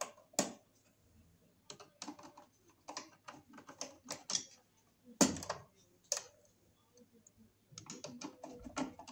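Irregular light clicks and taps of hand tools and a stiff number 10 copper wire against the terminals and metal box of a fused disconnect switch, as the wire is worked into a terminal; one louder knock about five seconds in.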